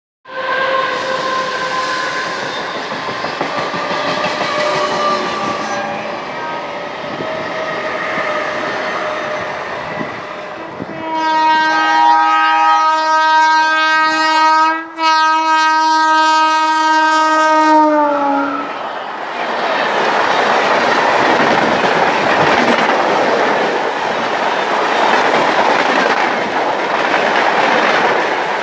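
A suburban electric train running on the neighbouring track, then an approaching WAP-4 electric locomotive sounding its horn in two long blasts, the pitch dropping as it passes. Its LHB coaches follow, rushing by at full speed with clickety-clack of wheels over rail joints.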